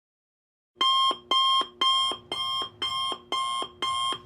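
Alarm clock going off: a buzzy electronic beep repeating about twice a second, each beep ending on a lower note, starting just under a second in.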